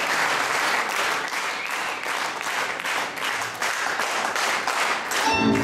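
Audience applauding in a hall. Just before the end, band music with a fiddle strikes up.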